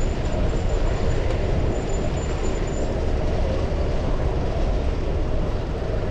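Steady wind rush on a chest-mounted action camera's microphone, with road and traffic noise, while riding a fixed-gear bicycle. A faint high thin whine fades out about halfway through.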